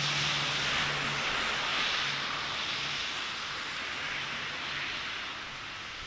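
Steady city street ambience: a hiss of traffic, with a faint low engine hum that comes and goes.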